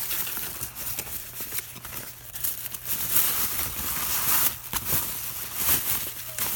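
Plastic parts bags crinkling and rustling, with small clicks of plastic pieces, as parts are handled and unwrapped.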